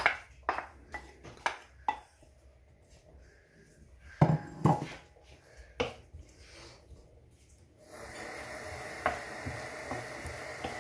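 Wooden spatula knocking and scraping against a ceramic bowl and a frying pan as diced potatoes are tipped into the oil, then clatter of a wooden spoon stirring them in the pan, with a few sharper knocks in the middle. About eight seconds in, a steady hiss starts.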